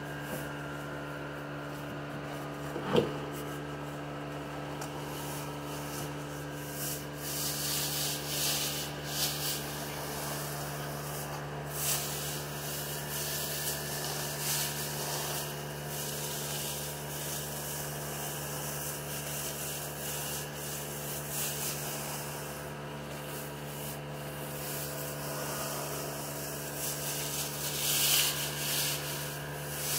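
Sanding on a car's bodywork: spells of abrasive rubbing that come and go, over the steady hum of a fan. A single sharp knock about three seconds in.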